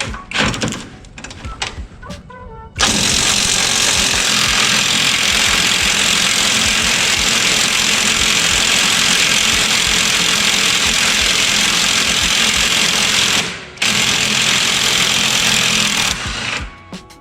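Power impact wrench hammering at a bolt in one long run of about ten seconds, then a short pause and a second run of a couple of seconds.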